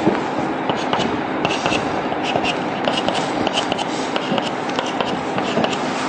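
Chalk on a blackboard, scraping briefly and then tapping out a quick run of short, sharp ticks as small marks are made, over a steady background hiss.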